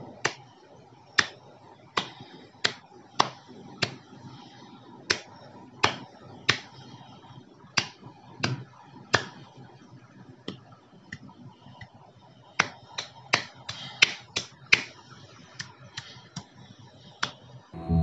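Fingers snapping again and again at an uneven pace, about one snap a second, then a quicker run of snaps in the last third, over a faint room hiss.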